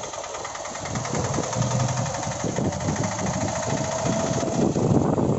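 Engine of a slow-moving road vehicle running steadily, heard from on board, with road noise.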